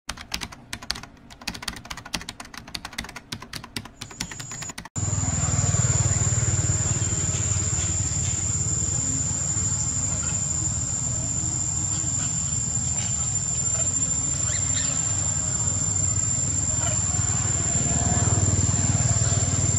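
A fast run of clicks for about five seconds, cut off abruptly, then steady outdoor ambience: a constant high-pitched whine over a low rumble, with faint scattered small sounds.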